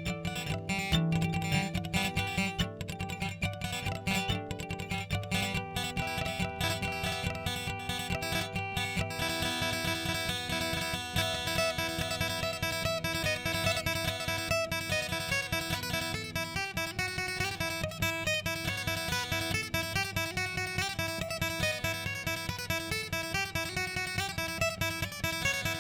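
Background music: plucked and strummed acoustic guitar with a steady rhythm.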